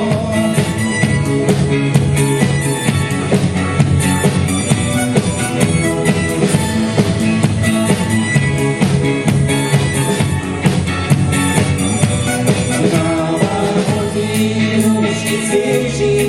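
Pop-rock band music with a steady drum beat.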